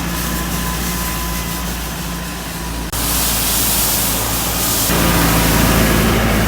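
Loud steady rushing noise with a low hum, as of a car's road and wind noise while driving, changing abruptly about three and five seconds in.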